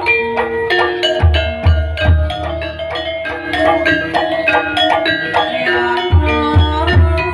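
Javanese gamelan playing: bronze metallophones ring out an interlocking melody over sustained gong-like tones. Low kendang drum strokes come in twice, each time as a group of three.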